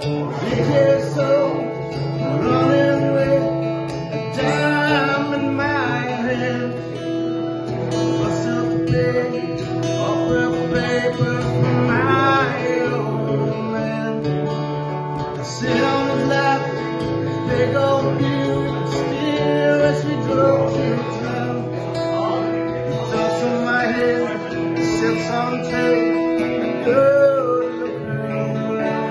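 Acoustic guitar strummed steadily while a man sings over it, a live solo song performance.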